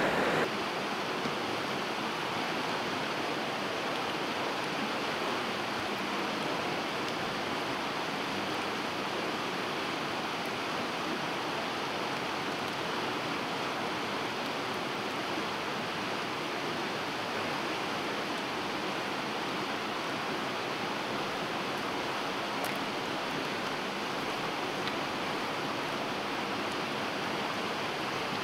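Steady rushing of a creek's flowing water.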